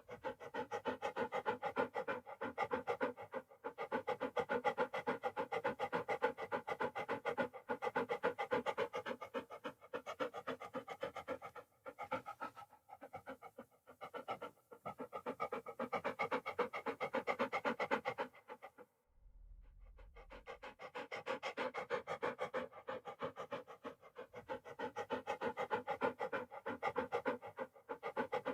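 A dog panting in fast, even breaths, with a few short pauses and one break of about two seconds roughly two-thirds of the way through before the panting picks up again.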